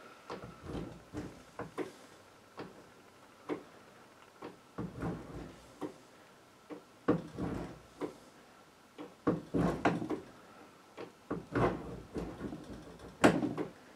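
Hand-operated keyway cutter worked stroke by stroke, cutting a keyway into a sprocket's bore: uneven sliding scrapes of metal on metal with clicks between strokes, growing louder in the second half.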